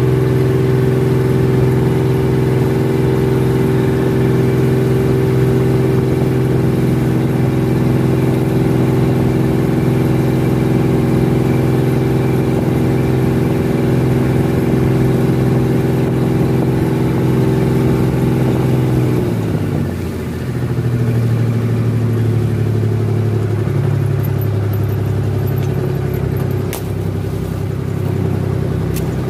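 Small fishing boat's engine running steadily under way, then throttled back about two-thirds of the way in, its pitch dropping to a slower, lower running note.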